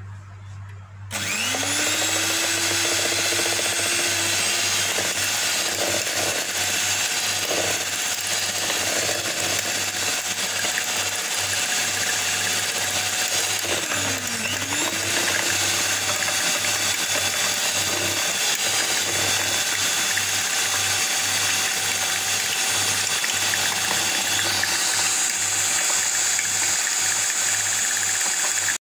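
Electric hand mixer running steadily, its twin wire beaters whisking eggs, oil and sugar in a bowl. The motor whine rises in pitch as it starts about a second in, dips briefly and recovers midway, and stops suddenly at the end.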